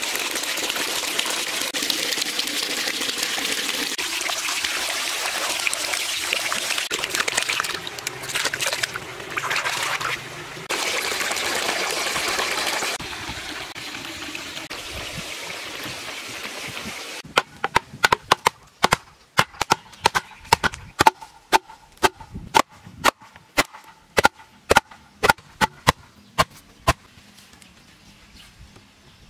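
Water pouring from spouts and running down a stone cascade into a cement pond, a steady splashing. Then, a little past halfway, the sound changes to a run of sharp knocks, about two a second, of a hammer driving wooden stakes into the ground.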